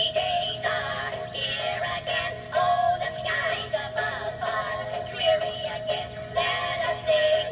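A song with singing plays through the small built-in speaker of a Gemmy Halloween novelty radio, thin-sounding with little bass.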